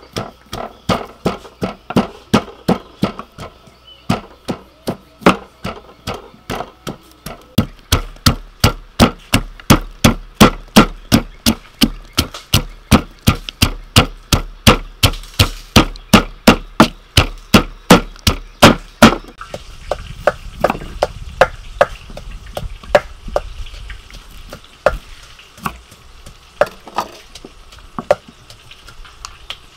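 Wooden pestle pounding garlic cloves and red chilies in a wooden mortar: a steady run of sharp thuds, about two to three a second, that stops about two-thirds of the way through. Near the end come a few knife knocks on a wooden chopping board as limes are cut.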